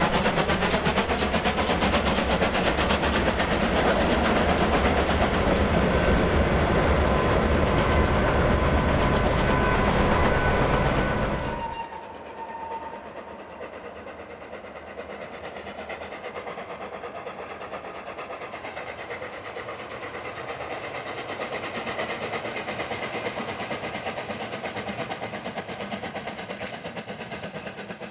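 FS Gr 625 steam locomotive and its carriages running past close by, loud and steady, with a faint high steady tone over the train noise for a few seconds in the middle. About twelve seconds in the sound cuts off suddenly to the same steam train heard approaching from a distance, quieter and growing slowly louder toward the end.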